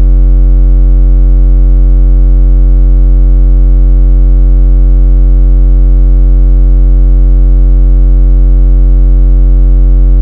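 A single very low, buzzy synthesized bass note, held loud and perfectly steady without a break.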